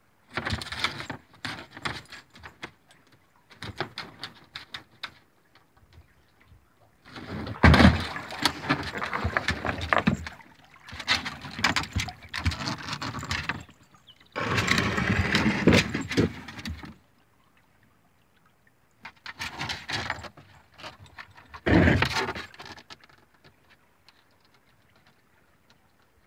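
Kayak paddling on a river: a paddle splashing and dripping water, with knocks against the hull, in irregular bursts a second or two long separated by short quiet gaps.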